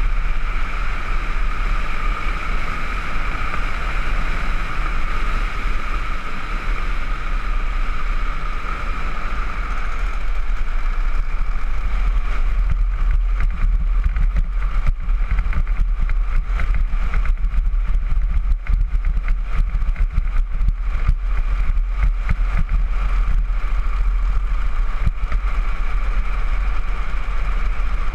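Wind buffeting the camera microphone as a downhill trike rolls fast down an asphalt road, with the rumble of its wheels on the pavement. A steady high whine sounds for the first ten seconds or so, then fades, and the noise turns choppier with rapid crackles.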